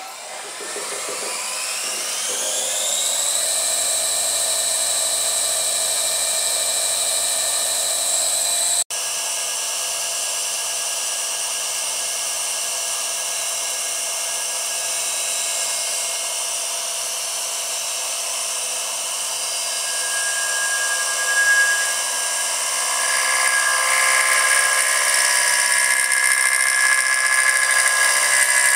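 CNC milling machine spindle spinning up with a rising whine over about three seconds, then running at a steady high speed. About three-quarters of the way through it gets louder, with added tones.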